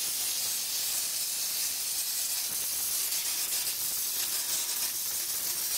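Hopper texture spray gun with a 6 mm nozzle, run on compressed air, spraying a cork-and-glue mix: a steady hiss of rushing air.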